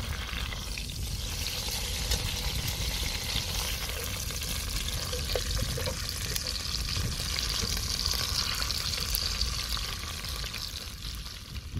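Impala shank searing in hot oil in a cast iron pot, a steady sizzle as the meat is sealed.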